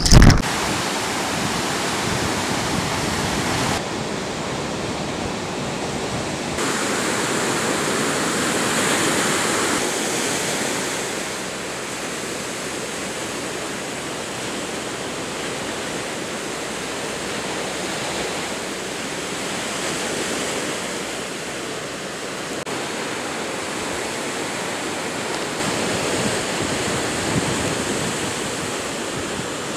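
Ocean surf: a steady rushing wash of small waves breaking and white water, with slight shifts in level a few times.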